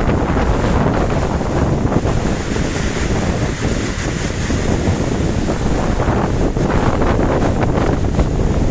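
Heavy rain pouring down steadily, with wind buffeting the microphone and a low rumble.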